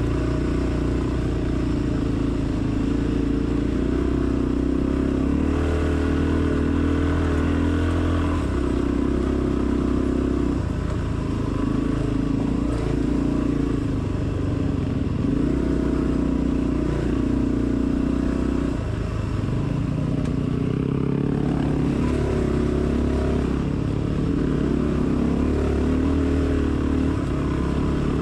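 Dirt bike engine running at low revs on a rough dirt trail, with the throttle opening and closing over and over so its pitch steps up and down every few seconds.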